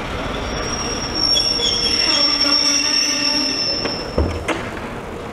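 Steel wheels of slowly moving passenger coaches squealing on the rails: a high, steady squeal of several tones together that starts about half a second in and fades out near the end. A single low thump comes about four seconds in.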